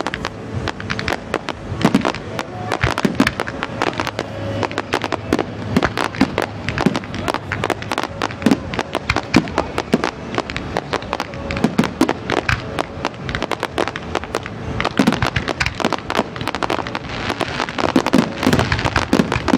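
Dense barrage of aerial firework shells bursting: rapid, overlapping bangs and crackles, many a second without a break.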